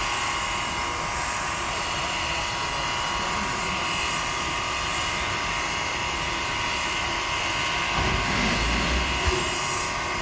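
Sierra Railway No. 28 steam locomotive standing with steam up: a steady hiss with a constant whine. A low rumble comes in near the end.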